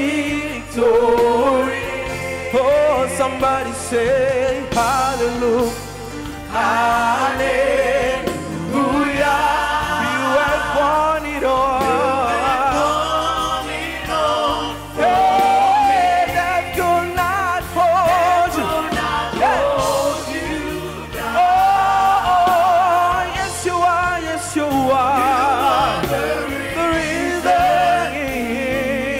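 Gospel praise and worship song sung by a group of mostly women's voices on microphones, with long wavering held notes and vocal runs over a steady low musical backing.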